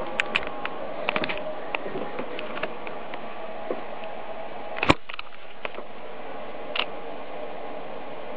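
Steady hiss with a faint hum, broken by scattered small clicks and one sharper click about five seconds in.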